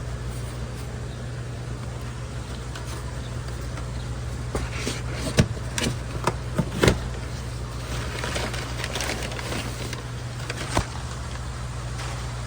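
Cardboard box and plastic packaging being opened by hand: crinkling and several sharp clicks and snaps in the middle, the loudest two about a second and a half apart. Under it, a steady low hum of running equipment.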